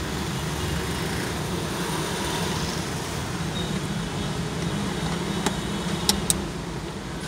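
BMW 740Li's turbocharged inline-six running at a steady idle just after starting on a newly fitted battery, with three sharp clicks near the end.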